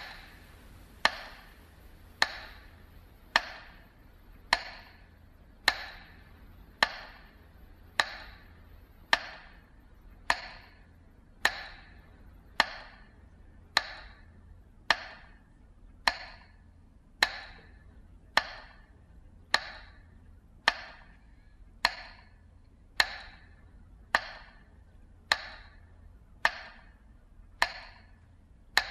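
Slow, even metronome beats marking a minute of silence: sharp ticks with a short ringing tail, a little slower than one a second.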